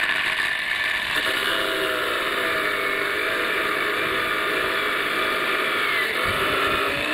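Angle grinder with an abrasive cut-off disc running at full speed and cutting steel rebar, a steady high whine whose lower tones waver and sag from about a second in as the disc bites into the bars.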